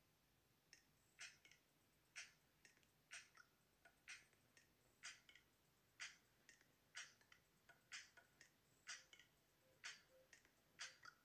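Faint, regular ticking: a sharp click about once a second, with softer clicks in between.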